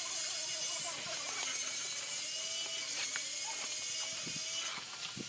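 A steady high-pitched buzzing drone that stops abruptly about four and a half seconds in. Under it, a few faint clicks and scrapes of a mason's trowel working mortar on clay roof tiles.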